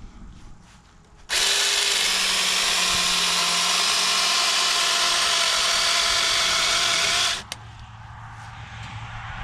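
Small electric chainsaw running steadily for about six seconds as it cuts into a pumpkin, then stopping abruptly. A quieter low hum follows and grows louder near the end.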